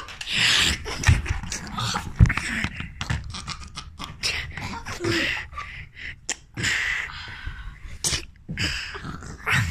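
A child's breathy, sneeze-like bursts and gasps, with clothing rustle and a few short knocks from close handling of the phone.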